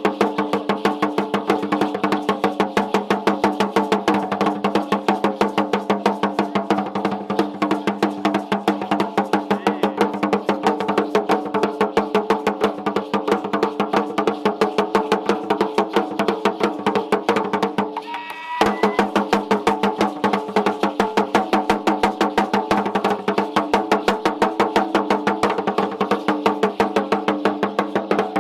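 Upright wooden Aztec huehuetl drum struck with two sticks in a fast, steady dance beat, its deep ringing tone held under the strikes. The beat breaks off for a moment about two-thirds of the way through, then carries on.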